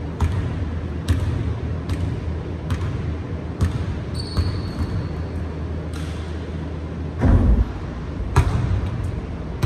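Basketball bouncing on a hardwood gym floor, roughly one bounce a second, each bounce ringing in the big hall. A brief high squeak comes about four seconds in, and a heavier thump a little after seven seconds.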